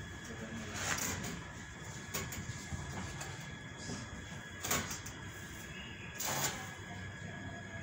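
Hand-held power grinder working the welds on a steel-tube trolley frame: a faint steady whine with short hissing grinding passes, the loudest about a second, nearly five seconds and six seconds in.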